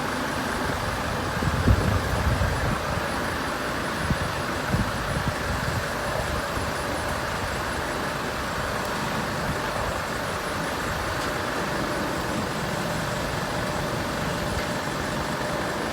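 Steady rumble of vehicle engines and road traffic, with a low thump a couple of seconds in and a smaller one about five seconds in.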